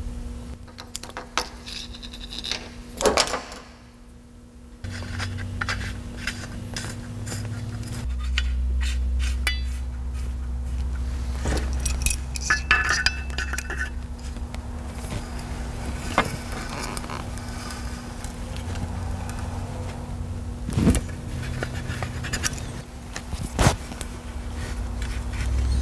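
Irregular metal clinks, knocks and scrapes as AN fittings are screwed into the ports of a B&M transmission cooler and tightened with a wrench. A steady low hum runs underneath.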